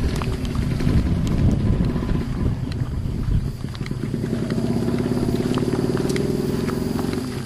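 A motor running steadily; its even hum comes in clearly about four seconds in, after a rougher low rumble with scattered clicks.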